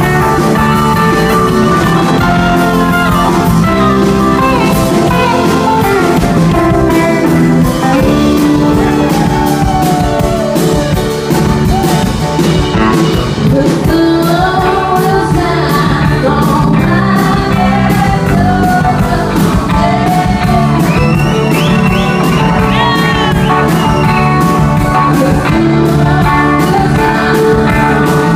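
Live rock band playing at full volume: an electric guitar lead with bending, sliding notes over bass and a drum kit, with vocals also present.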